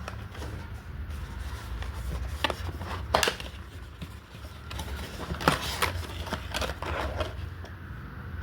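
Perfume packaging being handled: a string of sharp taps, clicks and scrapes, the loudest about three seconds in and again about five and a half seconds in, over a steady low hum.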